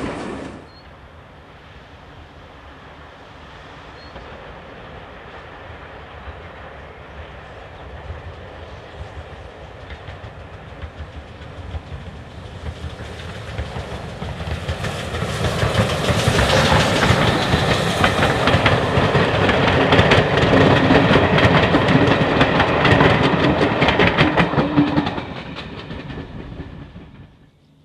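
Steam locomotive 9466, a GWR 9400-class pannier tank, hauling a train of coaches. It grows steadily louder as it approaches, is loudest for about ten seconds as it passes close by, then fades as it draws away.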